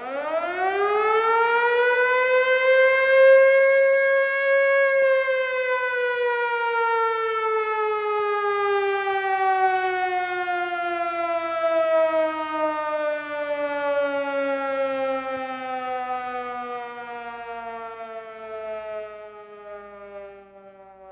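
Tornado / air-raid civil defense siren winding up quickly to a high pitch over about four seconds, holding there briefly, then winding slowly down in pitch and fading.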